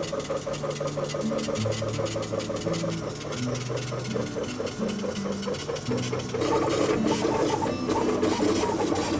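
Laser engraver's moving head raster-engraving a wooden axe handle: a fast, rhythmic buzzing of the motors as the carriage shuttles back and forth, pulsing with each stroke and growing louder about two-thirds of the way in.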